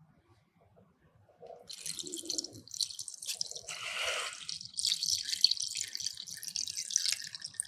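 Evapo-Rust rust remover being poured into a container, starting about a second and a half in and running on with short breaks.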